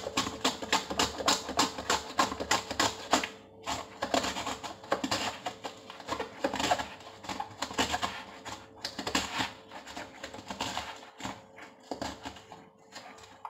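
Onion being sliced on a handheld plastic salad cutter over a plastic bowl: quick repeated rasping strokes, with short pauses about four seconds in and again near eleven seconds.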